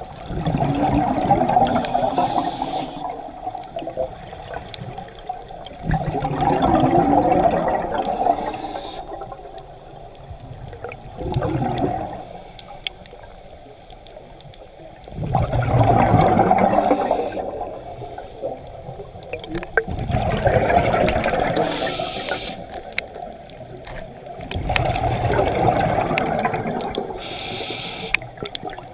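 Scuba diver breathing through a regulator underwater: loud rushes of exhaled bubbles about every four to five seconds, each breath cycle also bringing a short, high hiss from the regulator on the inhale.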